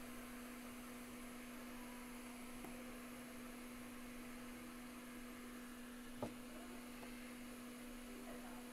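Steady low electrical hum, with a single sharp click about six seconds in.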